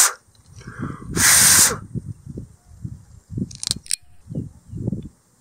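Two sharp puffs of breath blown close to the microphone, one at the start and a longer one about a second later, over low, irregular thumps of handling or wind noise.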